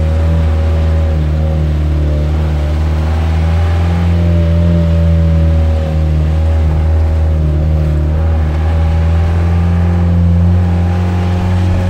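A vehicle's engine running steadily while driving, heard from inside the cab of a large vehicle as a loud, deep, even hum.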